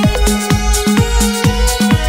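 Electronic background music with a steady beat, about two kick-drum hits a second under sustained synth tones.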